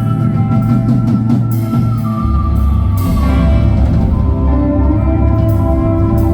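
Live country band playing an instrumental passage: drums and bass under long held notes that slide down in pitch about two and three seconds in.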